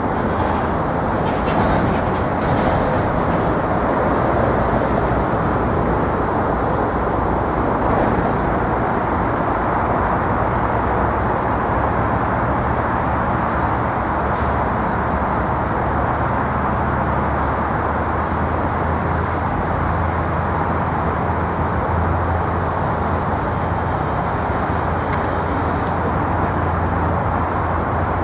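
Steady roar of city road traffic, even in level throughout, with a few faint high chirps about halfway through.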